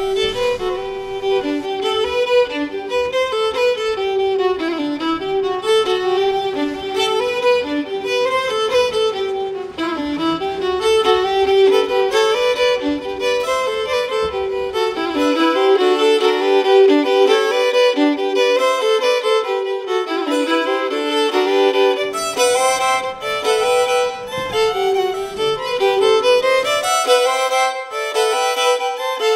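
Two violins playing a tune together.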